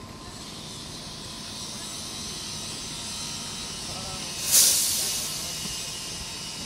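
Class 170 Turbostar diesel multiple unit standing at a platform with its engine idling, then a sudden loud burst of compressed air hissing out about four and a half seconds in, fading over about a second.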